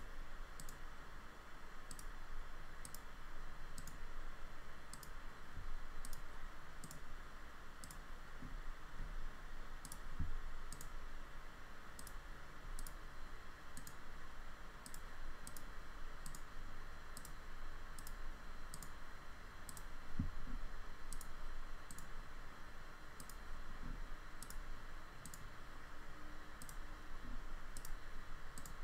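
Computer mouse clicking over and over, about one click every half second with a few short pauses, faint over a steady hiss.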